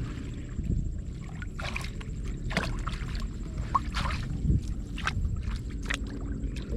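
Water splashing and sloshing, with many short splashes over a steady low rumble.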